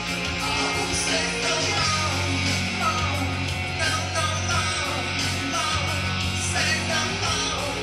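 Rock music with guitar played back from cassette tape on a Pioneer CT-A9X deck, through a Pioneer A-88X amplifier and loudspeakers; a stronger bass line comes in about two seconds in.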